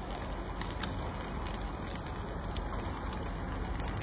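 Raw egg sizzling as it fries in a hot pan of rice: a steady hiss with small crackles.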